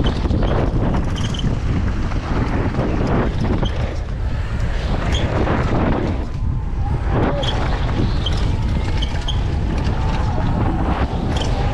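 Mountain bike riding down a dirt bike-park trail, heard from a GoPro on the bike or rider: a steady rush of wind on the microphone and tyre noise, with scattered short clicks and rattles from the bike.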